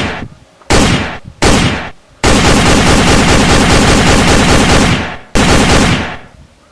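Film gunfire sound effects: two single shots under a second apart, each fading out, then a burst of rapid automatic fire lasting nearly three seconds, then one more shot.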